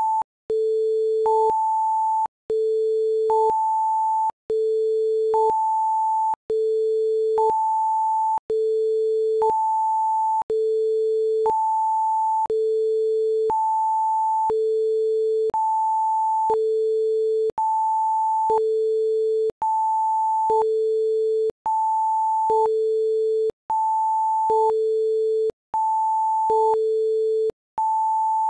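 Two pure electronic tones, a low one and one an octave higher, taking turns in a steady repeating pattern. The low tone lasts about a second and the high one a little less, with short breaks between them, and the cycle repeats about every two seconds.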